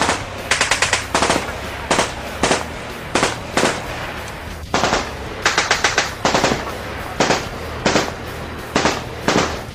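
Gunfire sound effect: automatic guns firing in short rapid bursts, about a dozen volleys with brief gaps between them.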